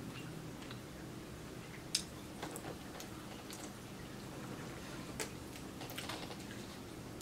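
Scattered small clicks and ticks over a low steady hum, with a sharp click about two seconds in; a plastic water bottle is handled and raised to drink, with crinkling clicks around five to six seconds in.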